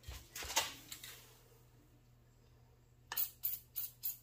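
Four short hissing bursts of an aerosol can of Teflon spray lubricant, about three a second near the end, sprayed onto a wire-wheel knock-off spinner. A few soft handling knocks come first.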